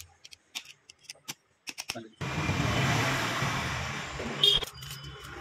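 Small metal engine parts clicking and clinking as the gearshift shaft and selector parts go into an open motorcycle crankcase. About two seconds in, a louder steady rumbling noise with a low hum starts suddenly and fades, and a sharp metallic clink rings out near the end.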